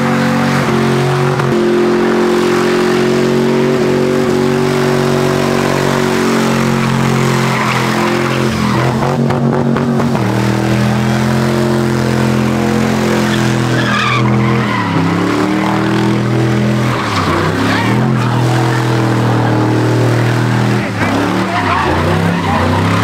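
Pickup truck doing burnouts and donuts: the engine is held at high revs while the rear tyres spin and screech on the asphalt. The revs drop and climb again a couple of times.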